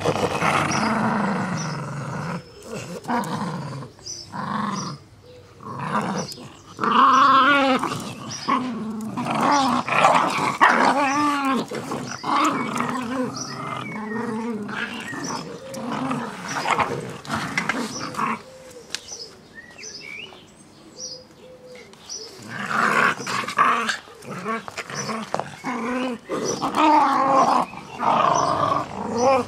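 Two Jack Russell terriers growling in play while tugging at a soft toy rabbit, in wavering bouts of a few seconds, with a lull of a few seconds past the middle.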